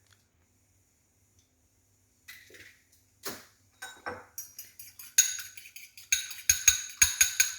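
An egg being beaten in a bowl with a metal utensil: after a quiet start, a few scattered clinks, then quick, even strokes of about five a second clinking against the bowl, growing louder toward the end.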